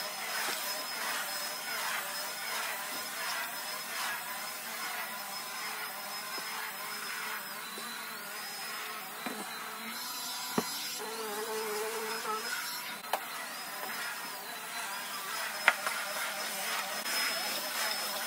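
Cordless stick vacuum running on carpet: a steady high whine over the rush of air, dipping lower in pitch twice as the head is pushed. Three short sharp knocks come in the second half.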